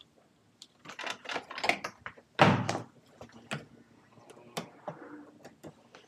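A string of clattering knocks and clicks from gear being handled, with one loud bang about two and a half seconds in.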